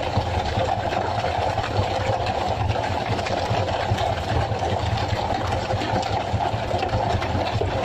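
Fishing boat's engine running steadily, with an even low running note that does not change.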